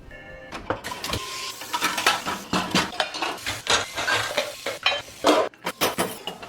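Dishes and cutlery clattering and clinking as they are handled, many quick knocks and clinks, with a short ringing clink near the start.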